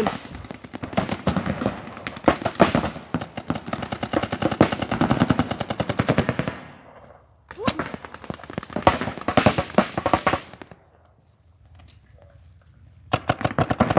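Paintball markers firing rapid streams of shots, dozens of sharp pops in quick succession. The firing stops briefly about seven seconds in, dies down to near quiet from about eleven seconds, then starts again in a fast burst near the end.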